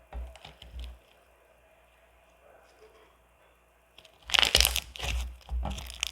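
Soft cookies-and-cream slime studded with foam pieces being squeezed and poked by hand, giving crackling air-bubble pops. Crackles sound in the first second, it goes quiet for about three seconds, then a burst of loud crackling comes about four seconds in.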